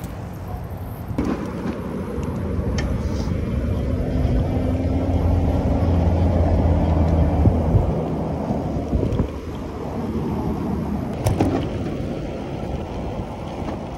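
Road traffic on the adjacent multi-lane road, a steady low rumble that swells as vehicles pass, loudest about seven seconds in and then easing. A few sharp knocks come about eleven seconds in.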